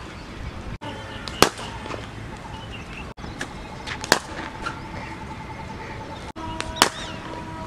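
Cricket bat striking the ball three times, each a single sharp crack, a little under three seconds apart.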